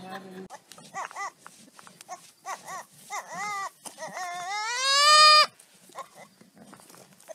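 Goat bleating: a run of short bleats, then one long rising bleat about four seconds in that cuts off suddenly.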